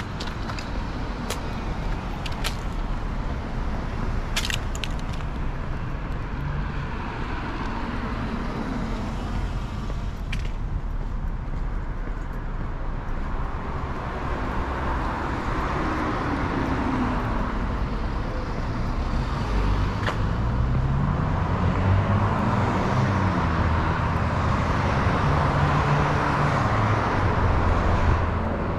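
Road traffic: motor vehicles passing, with steady tyre and road noise and engine hum that rises and falls and grows louder in the second half. A few sharp clicks come in the first few seconds.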